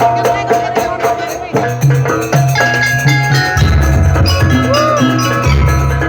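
Live music led by kendang (Indonesian hand drums) played hard and fast, over held melodic tones and a deep bass that drops in and out, with a brief bend in pitch about five seconds in.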